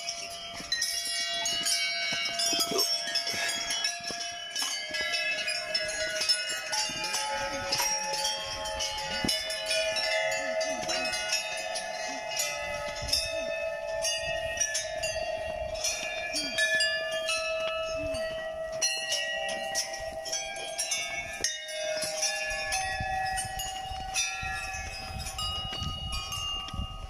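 Metal temple bells rung over and over by many hands, their overlapping ringing tones renewed by frequent strikes.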